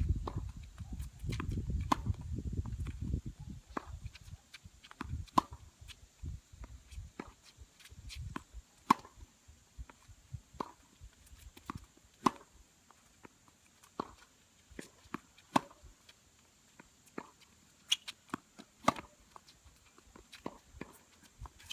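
Tennis balls being struck with rackets and bouncing on the court in a rally: sharp pops, the loudest about every one and a half to two seconds, with fainter ones between.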